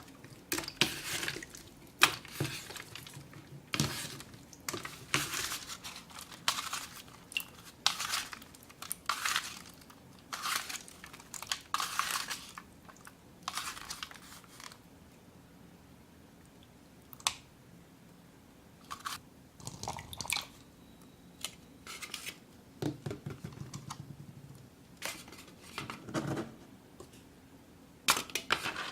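Slime and water beads being squeezed and worked by hand, giving wet crackly squelches about once a second, then sparser clicks and soft squishes from about halfway through.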